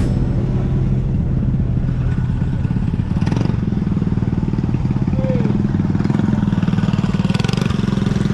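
Classic car engine running close by at a steady speed, with an even, rapid exhaust beat.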